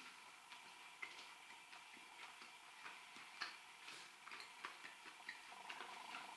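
Near silence with faint, irregular small clicks, about two a second, as thin slices of dried, smoked beef are handled and eaten at a wooden cutting board.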